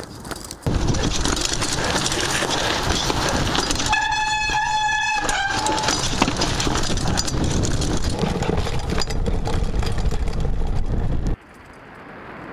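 Mountain bike descending rough, rooty singletrack: loud wind buffeting on the microphone and the bike rattling over the trail, with a brake squealing in one steady high tone for about a second and a half near the middle. The noise drops away suddenly near the end.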